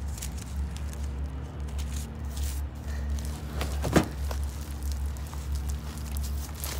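Light shuffling and small knocks over a steady low rumble, with one sharp knock about four seconds in as the camera is bumped.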